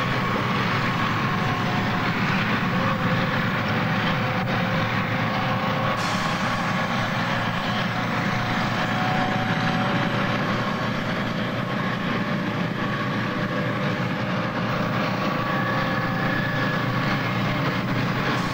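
Steady running noise of armoured tracked vehicles, engines and tracks going at an even level throughout.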